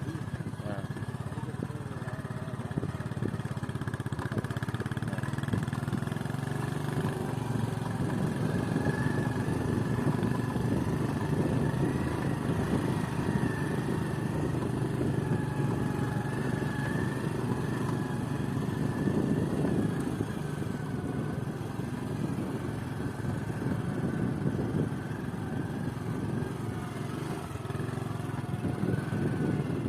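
Excavator's diesel engine running steadily with a fast, even throb that swells a little in level at times.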